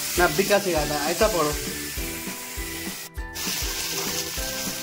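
Marinated chicken sizzling in oil in a pan on a low flame. Background music with a steady beat runs under it, with a voice in the music loudest in the first second or so, and all sound drops out briefly about three seconds in.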